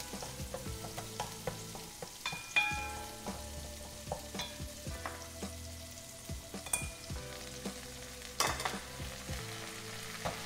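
Lemongrass and sliced aromatics sizzling in hot oil in a pot, with the short knocks and scrapes of a wooden spatula stirring against the pot. About eight seconds in, a louder burst of sizzling as the boiled, drained cassava leaves go into the oil.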